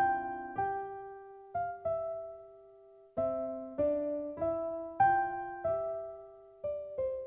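Background music on a piano-like keyboard: a slow, gentle melody of single notes struck every half second or so, each left to ring and fade, with a longer pause about two seconds in.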